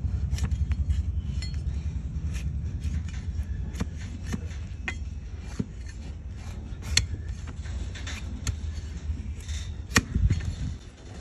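Donkey hoof being pared with a large flat hoof-trimming blade: irregular crisp cuts and scrapes as the blade shears slices of hoof horn, two sharp cracks standing out about two-thirds through and near the end. A low rumble underneath fades over the first few seconds.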